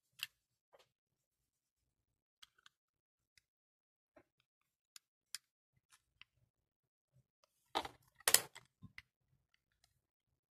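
Trodat 4810 date stamp's rubber date bands clicking as they are turned, scattered small clicks, with two louder clacks from the stamp's plastic body about eight seconds in.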